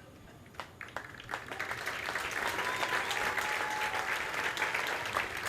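Stadium crowd applauding: a few scattered claps about half a second in, building within about a second into full, steady applause.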